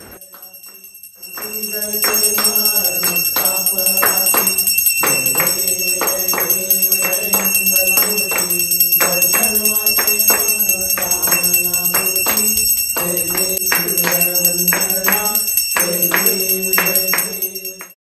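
Group singing an aarti to Ganesh, with steady rhythmic hand-clapping about three times a second and a handbell ringing without pause. It cuts off abruptly near the end.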